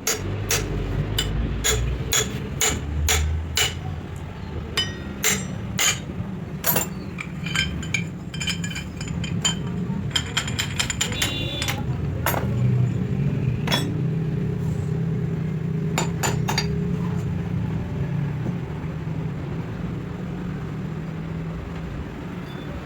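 Hand hammer striking metal: a quick run of blows, about three a second, for the first six seconds or so, then lighter ringing metallic clinks and a few scattered strikes, over a steady low hum.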